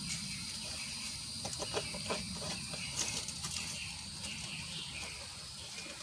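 Steady outdoor insect drone, several high thin tones held without a break, with a few light clicks and knocks near the middle.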